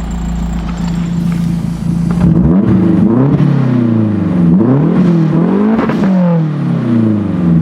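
Mazdaspeed 3's 2.3-litre turbocharged four-cylinder idling steadily, then blipped about three times from around two seconds in, its pitch rising and falling with each rev. The engine starts and revs freely again after the fuel rail and fuel pressure sensor were replaced to clear a P0193 fault.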